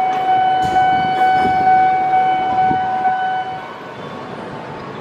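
Train horn held on one steady note over the noise of a passing train, cutting off about three and a half seconds in.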